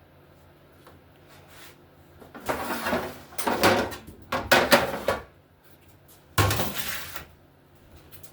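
Kitchen handling around an oven: about three seconds of scraping and clattering as a baking sheet goes in, then an oven door shutting with a thump about six and a half seconds in.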